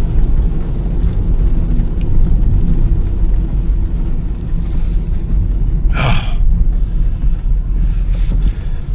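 Steady low rumble of road and engine noise inside a car's cabin, with a short hiss about six seconds in.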